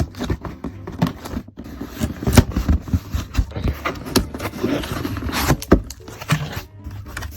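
A small package being opened by hand: irregular rustling, scraping and tearing of the packaging, with many short clicks and knocks as it is handled.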